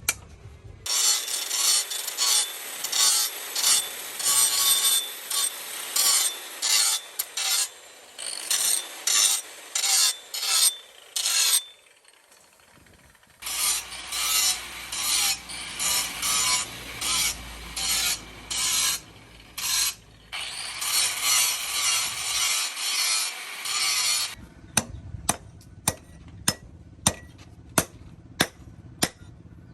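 A hand file rasping over the steel axe blade in repeated strokes, about two a second, with a short pause about halfway. Near the end the filing stops and sharp light taps follow, about two a second.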